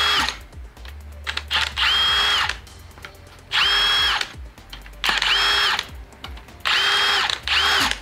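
Cordless drill-driver backing bolts out of a Subaru EJ cylinder head in short bursts of under a second, about six times. Each burst carries a motor whine that rises as it spins up and falls as it stops.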